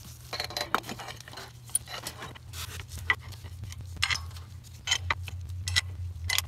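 Scattered light metal clinks and taps as a torque converter's metal backplate and roller chain are handled and fitted onto a small engine's crankshaft, over a steady low hum.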